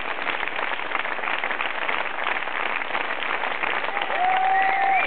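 Audience applauding steadily, a dense patter of hand claps. About four seconds in, someone whistles one long note, followed by warbling whistles near the end.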